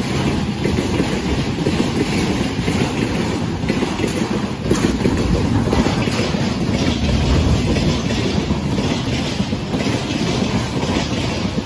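Freight wagons carrying tank containers rolling past close by: a steady rumble of steel wheels on the rails.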